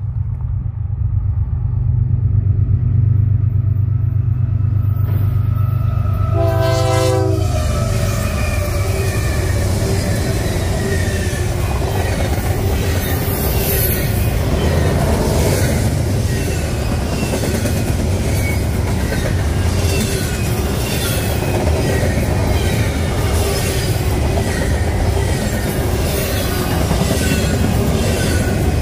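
Diesel locomotives of a fast double-stack intermodal freight train rumble as they approach, with a short horn blast about six seconds in as they pass. A long line of container well cars then goes by at speed, with loud rail noise and rapid clicking of wheels over the rail joints.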